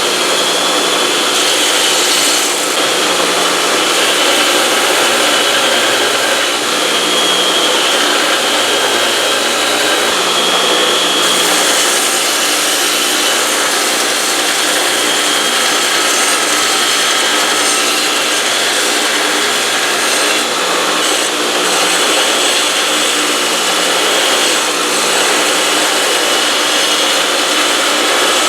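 2x72 belt grinder grinding the bevel into a leaf-spring steel knife blade: a steady hiss of the abrasive belt on the steel, with a faint whine that wavers in pitch as the blade is worked.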